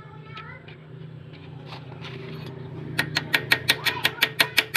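Steady low machine hum; about three seconds in, a pulsed laser welder starts firing in a fast, even run of sharp clicks, roughly seven a second.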